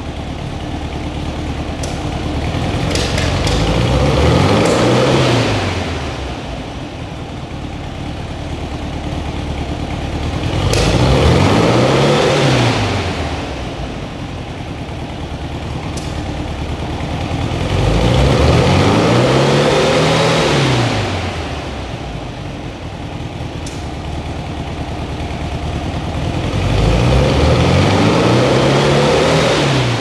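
Air-cooled VW flat-four engine with twin carburetors running through a stainless steel SS143 Super Sport exhaust: idling, then revved up and let back down four times, each rise and fall lasting about three seconds.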